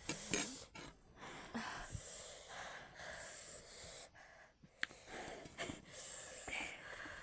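A person breathing hard, with breathy hissing and sniffing in and out.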